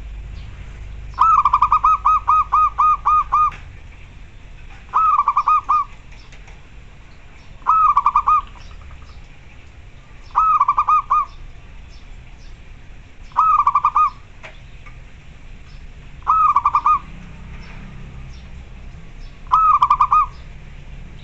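Zebra dove (perkutut) cooing: a run of about nine quick coos about a second in, then short phrases of three or four quick coos repeated roughly every three seconds.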